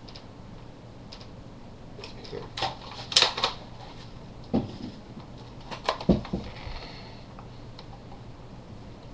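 Plastic clicks and knocks from a Nerf Longstrike toy blaster being handled and turned about, in a few short clusters in the middle, the sharpest about three seconds in and again about six seconds in.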